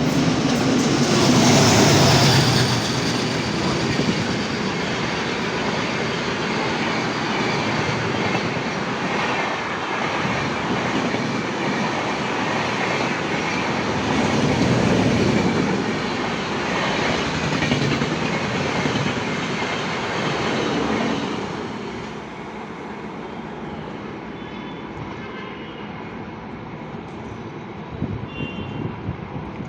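Express train hauled by a WDM3A diesel locomotive running at high speed, a steady rumble and rattle of wheels on the rails that swells a few times, then drops noticeably about 22 seconds in.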